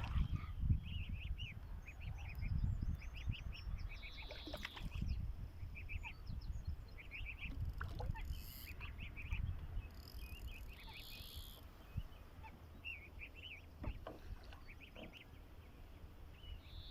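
Small birds singing in quick series of short, repeated chirps, over a steady low rumble.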